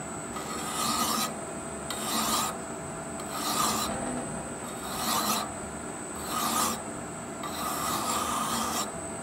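A hand file rasping against an unhardened steel shaft turning in a Grizzly G0752Z metal lathe at about 300 RPM, in even strokes about one every second and a half. Under the strokes the running lathe gives a steady hum with a thin high whine. This is the final filing of the shaft down to size for a bearing interference press fit.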